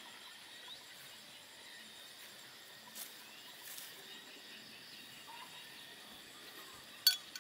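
Quiet evening outdoor ambience with a steady high-pitched chirring of insects. Near the end comes a single sharp clink as the cooking pot is set down on the grass.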